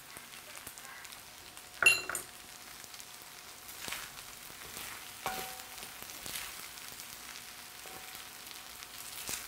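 Kimchi fried rice sizzling faintly in a wide pan while it is stirred with a wooden spatula and chopsticks, with soft scraping strokes. A sharp clink with a brief high ring comes about two seconds in.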